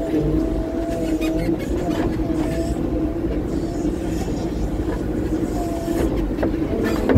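Front end loader's diesel engine running steadily, heard from inside the cab, with a higher whine that wavers up and down in pitch over the low drone.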